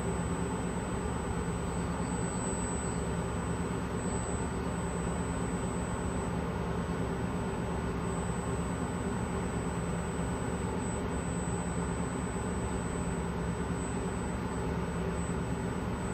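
Steady hum of workshop machinery with a thin, high-pitched whine over it, unchanging throughout.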